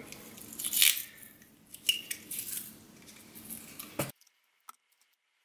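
Painter's masking tape being pulled off the roll in rasping strips and wound around a pack of six 18650 lithium-ion cells, with light clicks and rustles from handling the cells. The sound cuts off suddenly about four seconds in.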